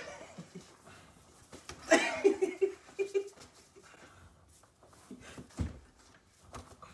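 A young man laughing in a few short, quick bursts about two seconds in, over scuffling and rustling from play-wrestling on a bed, with a dull thump later on.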